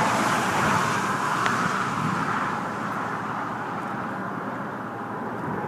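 Road traffic on the Hoover Dam bypass bridge: a steady wash of tyre and engine noise from passing vehicles, loudest at the start and slowly easing off.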